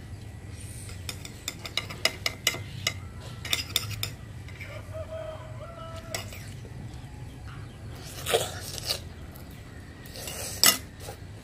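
Metal spoon clinking and scraping on a glass plate of rice, a quick run of light clicks in the first few seconds and two louder clatters towards the end.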